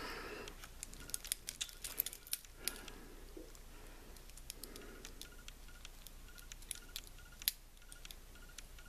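Faint handling noises: quick clicks and light metallic clinks from small watch tools in plastic bags and a steel-bracelet wristwatch being picked up, thickest in the first three seconds and sparser after.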